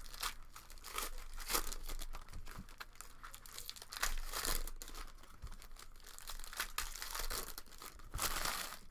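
Shiny foil trading-card pack wrapper being torn open and crinkled by hand, in irregular crackling bursts.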